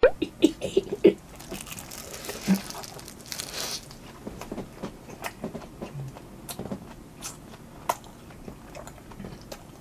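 Close-up mouth sounds of a man eating a chive pancake: wet smacking and chewing clicks, a quick cluster in the first second, then scattered through the rest, with a brief rustle about three and a half seconds in.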